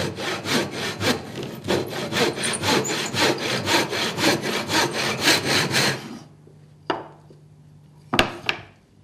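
Hand saw cutting through a small piece of timber at 45 degrees in quick, even back-and-forth strokes, taking off the bulk of the waste for a chamfer. The sawing stops after about six seconds. A sharp knock follows near the end.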